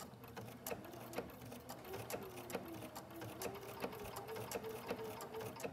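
Bernina sewing machine sewing a blanket stitch at slow speed. The needle clicks about twice a second over the steady hum of the motor.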